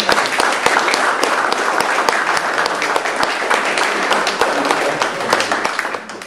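Small audience applauding, many hands clapping at once.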